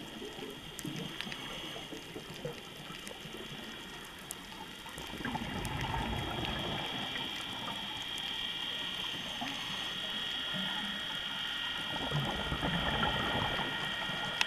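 Underwater ambience on a scuba dive: the diver's exhaled bubbles gurgle in swells, about five seconds in and again near the end. Underneath runs a steady hiss with faint scattered clicks and a faint steady high whine.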